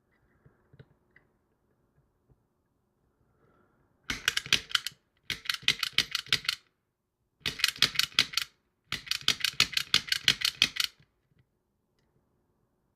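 Bursts of rapid, sharp clicking, each run lasting one to two seconds, four runs in all with short pauses between.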